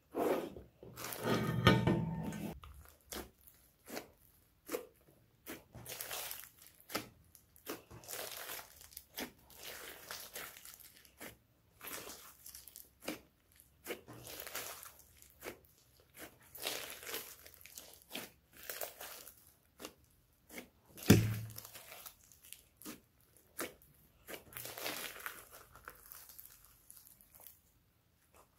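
Hands squishing and stretching slime, giving irregular short crackling pops and sticky crunches, with a louder burst of squelching in the first couple of seconds and one heavier thump about three-quarters through.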